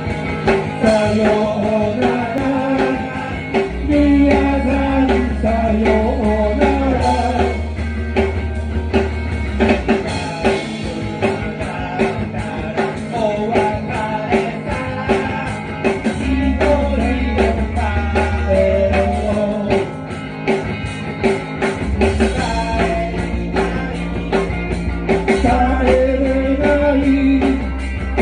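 Rock band playing live: a singer over guitar and a drum kit keeping a steady beat.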